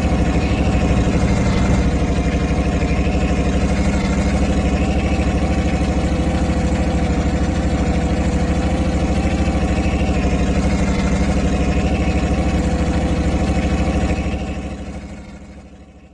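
Diesel truck engine idling steadily with an even, rapid beat, fading out over the last couple of seconds.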